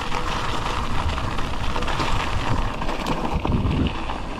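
Mountain bike rolling fast downhill over a gravel and dirt trail: steady tyre and trail rattle with wind rumbling on the camera's microphone.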